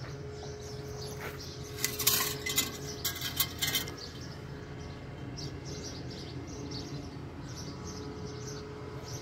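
Steady low hum of a pickup truck's engine idling, with a burst of sharp metallic clinking and jingling about two to four seconds in.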